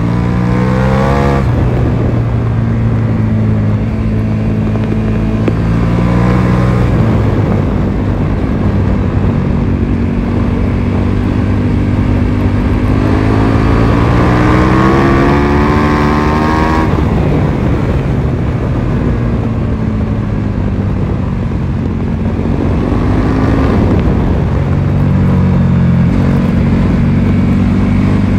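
KTM 1290 Super Duke R's V-twin engine under hard riding, heard from the rider's position: its pitch climbs under throttle several times, with the longest climb in the middle breaking off abruptly, then falling low and rising again near the end.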